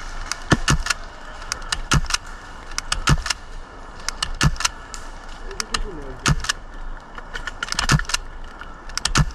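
Airsoft guns firing single shots: sharp cracks at irregular intervals, often two in quick succession, about a dozen and a half in all.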